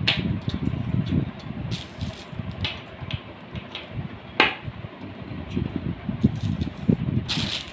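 Handling noise of small plastic-packed tripod accessories and plastic bags on a table: rustling and crinkling with irregular knocks and a few sharp clicks, the sharpest about four seconds in.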